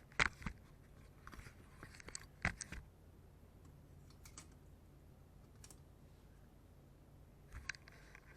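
A few sharp clicks and knocks of small hard objects being handled, the loudest right at the start and again around two and a half seconds, with a last faint pair near the end, over a faint steady low hum.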